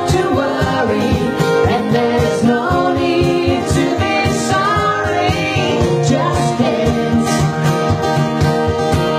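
A woman singing into a microphone over a strummed acoustic guitar, performed live.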